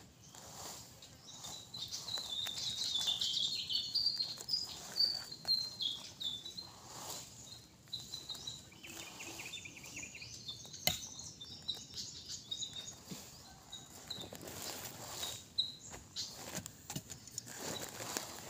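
Birds chirping in short high notes, busiest in the first six seconds and again later, over scattered scraping and knocking of a blade digging into soil, with one sharp knock about eleven seconds in.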